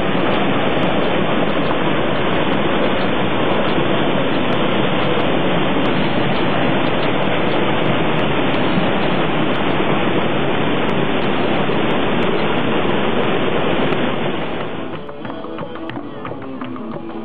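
Steady rushing of white water cascading over the boulders of a rocky mountain stream. About fifteen seconds in, the water sound drops away and plucked guitar music takes over.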